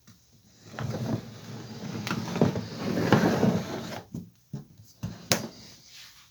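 Packaging being handled and opened: irregular rustling with several sharp clicks and knocks, the sharpest about five seconds in.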